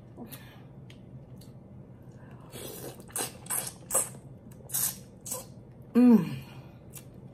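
Close-miked wet mouth sounds of eating lobster: a run of sharp smacks and sucking clicks, then, about six seconds in, a short, loud voiced 'mm' that falls in pitch.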